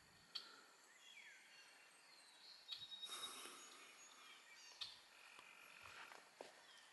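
Faint bird chirps and short whistled calls over quiet outdoor ambience, with a few soft clicks and a brief rustle about three seconds in.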